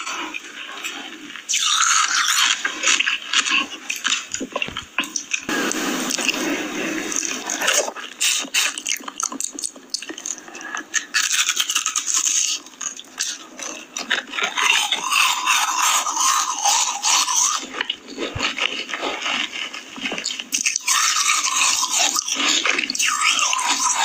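Close-miked eating sounds of ice cream: wet, sticky mouth sounds with some scraping, coming in irregular stretches.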